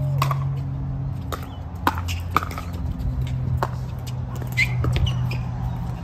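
Pickleball rally: paddles striking a plastic pickleball in a quick exchange, a string of sharp pops spaced irregularly, over a steady low hum.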